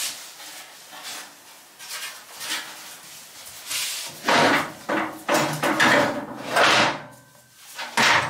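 Rusty steel scooter frame parts and a T-handle wrench knocking, clanking and scraping on a workbench as they are picked up and shifted: a few light knocks at first, a louder stretch of clattering and scraping around the middle, and a sharp knock near the end.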